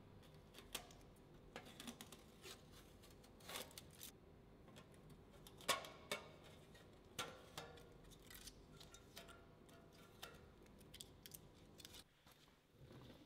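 Hand tools working sheet metal at a bench: about twenty irregular sharp metallic clicks and snips, the loudest about six seconds in, over a faint steady workshop hum.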